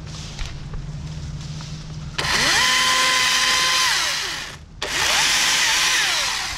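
Husqvarna T536LiXP battery chainsaw run twice on small limbs: each time its electric whine rises quickly to full speed, holds steady for about one and a half to two seconds, then winds down, with a brief pause between the two runs.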